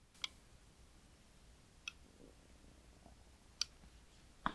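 Four small sharp clicks, about a second and a half apart, with the loudest one near the end: hands setting down and handling a USB modem's circuit board and multimeter probes.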